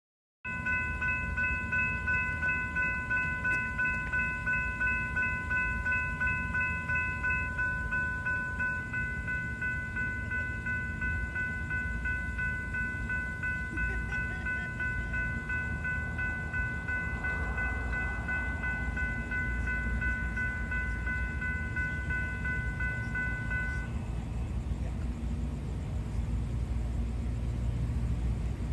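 Railroad grade-crossing bells ringing in a quick steady beat, about two strokes a second, over a low rumble. Part of the ringing stops about a third of the way in and the rest stops about three-quarters of the way through, leaving the low rumble, which grows a little louder near the end.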